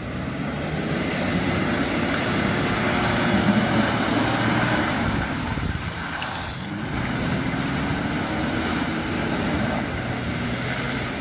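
Suzuki Grand Vitara's engine revving hard as its spinning wheels churn through deep mud and water, with the rush of the spray; the revs climb and fall twice.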